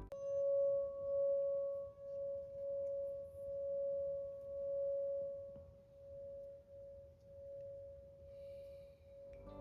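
A single sustained ringing tone in the background music, wavering slowly in loudness and fading gently, between passages of plucked-string music.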